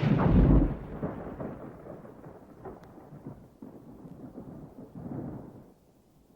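Thunder: a loud clap at the start rolling off into a low rumble, then a second, weaker roll of thunder about five seconds in.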